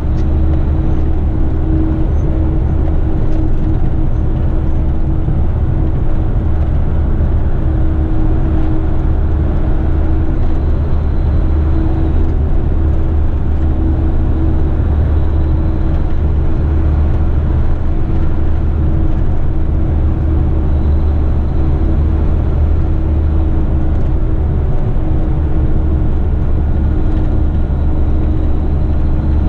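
Heavy rigid truck's diesel engine and tyres heard from inside the cab while cruising at a steady freeway speed: a steady low drone with a constant hum above it.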